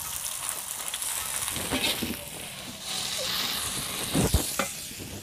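Papaya leaves sizzling in a metal wok as a spatula stirs and scrapes them through the hot oil and spices, with a dull knock about four seconds in.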